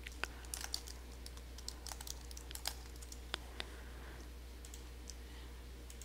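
Typing on a computer keyboard: a quick run of key clicks spelling out a short word over the first three and a half seconds or so, then stopping.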